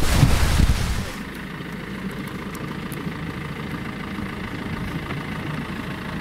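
Loud wind on the microphone and rushing bow wash for about a second. It cuts off abruptly and gives way to a small boat's engine idling steadily.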